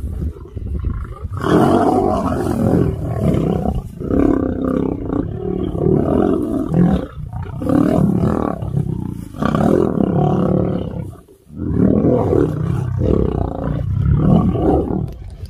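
Male lions roaring and snarling as they fight, loud and in repeated bouts of two to three seconds, with one brief break about eleven seconds in.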